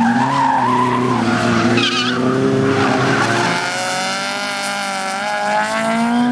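Rally-prepared hatchbacks with engines revving hard through a tight corner, with a short tyre squeal about two seconds in. In the second half one engine's note climbs steadily as it accelerates out of the turn.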